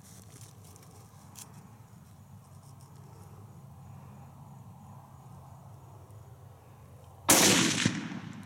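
A single rifle shot about seven seconds in, sudden and loud, dying away over about a second. Before it only a faint steady background with insect chirping.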